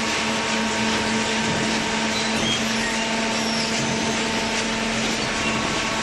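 Hydraulic baling press running: a steady motor and pump hum with an even mechanical hiss.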